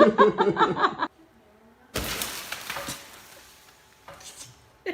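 A sudden crash of something breaking, with a shattering sound that dies away over a second or two.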